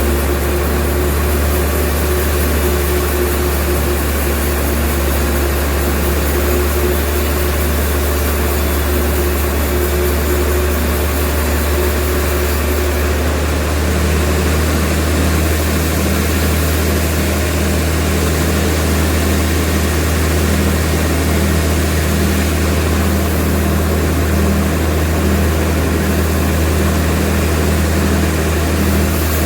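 Sawmill machinery running steadily with a deep hum and a noisy whirr. About halfway through, its tone shifts to a different pitch.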